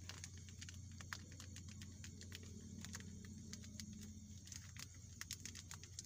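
Quick, irregular light clicks and taps of camp cookware, mugs and packets being handled, coming thicker near the end, over a steady low hum.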